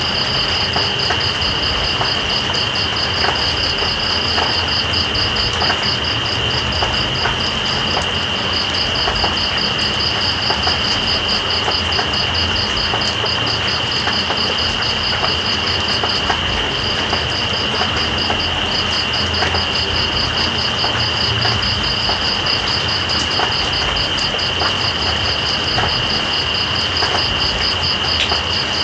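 Crickets and other night insects calling over steady rain. One keeps up a continuous high trill, and another chirps in a fast, even pulse that breaks off for a moment about halfway. Rain makes a constant hiss, with scattered drops pattering.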